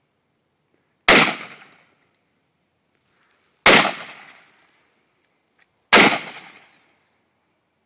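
AR-15 rifle firing three single shots, about two to two and a half seconds apart, each shot fading away over about a second.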